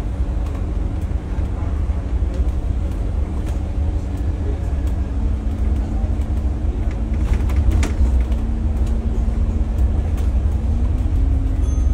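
Diesel bus engine and road rumble heard inside the upper deck of a moving double-decker bus: a deep steady drone whose engine note rises a little about halfway through and again near the end. A few clicks or rattles come about two-thirds of the way through.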